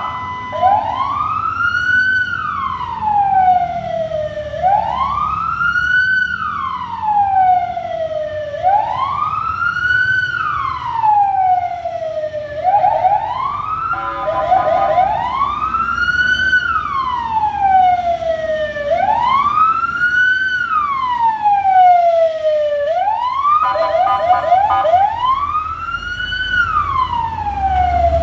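Fire truck siren in wail mode: a tone that sweeps up quickly and falls slowly, repeating about every four seconds. A few brief fast warbles break in between sweeps.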